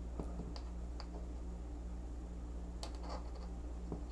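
A steady low electrical hum with a few faint clicks and taps, the kind made by small parts being handled on a workbench. The clicks come most densely about three seconds in.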